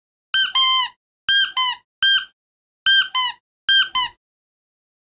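Rubber squeaky dog toy shaped like a ball of yarn, squeezed by hand: about nine short squeaks, mostly in quick pairs, each one falling in pitch at its end.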